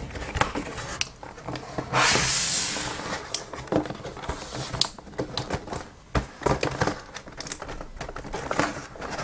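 Cardboard keyboard box being handled and opened: scattered taps, crinkles and rustles, with one louder sliding scrape of cardboard about two seconds in that lasts about a second.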